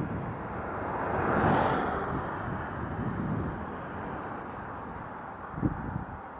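A vehicle passing along the highway beside a cyclist: its tyre and road noise swells and fades about a second or two in. Underneath is a steady rumble of wind buffeting the bike-mounted camera's microphone.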